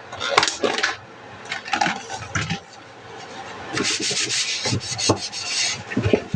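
Kitchen cleanup handling: scattered knocks and clatters of kitchenware, with a stretch of rubbing or scraping about two-thirds of the way in.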